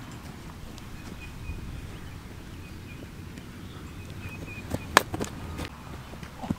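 Wind rumbling on the microphone, with faint high chirps. About five seconds in comes one sharp slap of a football being thrown, with a few lighter knocks of cleated footsteps around it.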